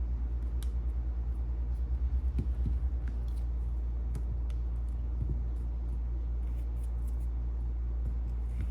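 Steady low hum that pulses for the first few seconds, with a few faint small clicks and taps over it.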